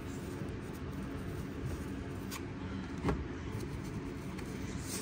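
Trading cards and a pack being handled on a table mat: a few soft clicks and shuffles, the clearest about two and three seconds in, over a steady low background hum.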